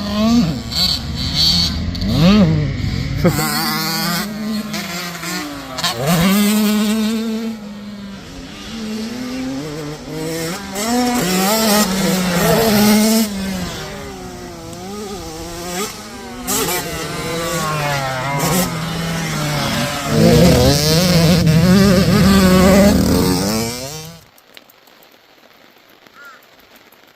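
Two-stroke 85cc motocross bike engines revving hard and easing off, the pitch climbing and dropping again and again with throttle and gear changes as the bikes ride through muddy ruts. Near the end the engine sound cuts off abruptly, leaving only a faint hiss.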